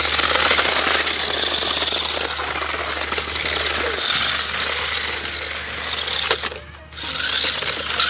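Small electric motors of a toy 2.4 GHz RC stunt motorcycle running, with a dense buzzing rattle as the plastic wheels spin and drift across concrete. The sound drops briefly about six and a half seconds in.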